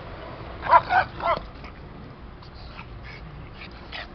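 Small dogs yipping in play: three quick high-pitched yips about a second in, then fainter short whines and yaps.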